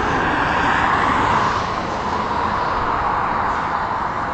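Dual-carriageway traffic noise: the tyre hiss of passing vehicles, swelling about a second in and then easing off, with wind rumbling on the microphone.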